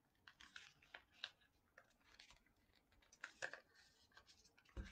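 Faint, scattered small clicks and scratches of fingers picking at a small box's packaging while trying to open it, with a duller knock near the end.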